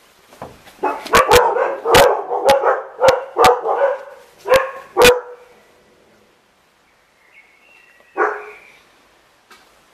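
Puppies barking in play: a quick run of high yapping barks for about four seconds, then a single bark later on.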